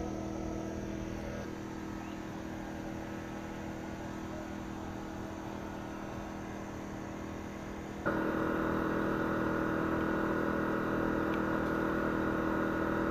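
Steady machine hum with several constant tones, stepping louder about eight seconds in.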